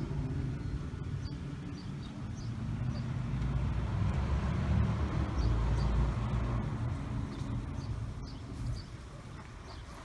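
A road vehicle passing. Its rumble grows louder toward the middle and fades away near the end.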